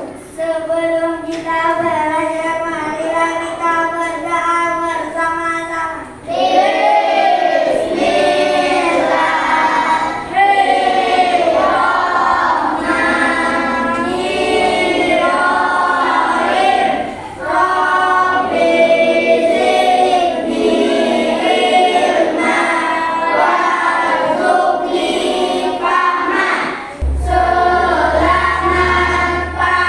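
A group of children singing a song together, starting with long held notes for the first few seconds before the melody moves on. A low hum joins near the end.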